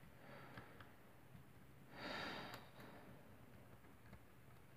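Near silence: room tone, with one soft breath about two seconds in.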